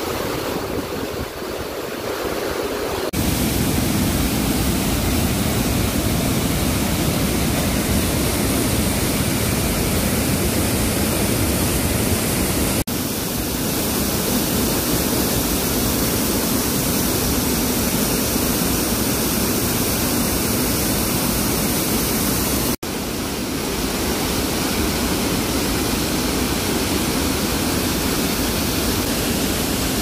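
Loud, steady rush of a waterfall and mountain stream pouring over rocks. It jumps louder a few seconds in and breaks off for a split second twice further on, where the shots change.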